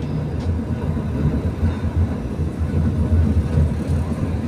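Vintage Blackpool tram running along its track, a steady low rumble of wheels on rails heard on board.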